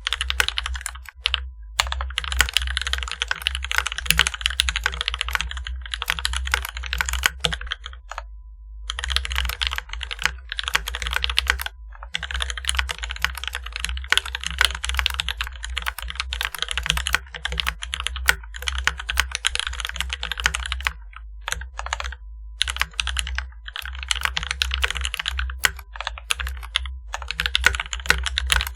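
Fast continuous typing on a mechanical keyboard with NovelKeys Silk Black linear switches, factory-lubed with Krytox 205g0, under GMK doubleshot ABS keycaps. It is a rapid clatter of keystrokes with a few short pauses, over a steady low hum.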